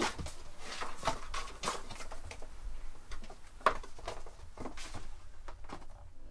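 A cat scrabbling at a cardboard box and a string toy: an irregular run of knocks, scratches and rustles from paws on cardboard, with one sharper knock about three and a half seconds in.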